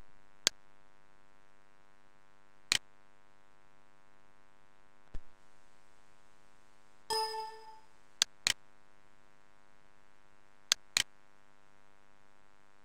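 Computer mouse clicks at a desktop, the later ones in pairs like double-clicks, over a faint steady electrical hum. About seven seconds in, a short electronic chime sounds.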